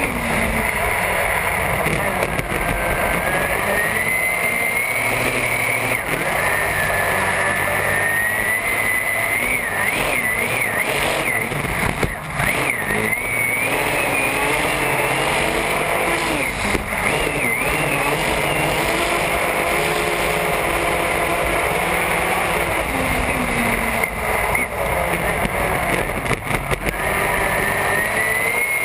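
Supercharged race boat engine running hard at speed, heard from onboard, its pitch rising and falling and wobbling with the throttle, over a steady rush of water spray.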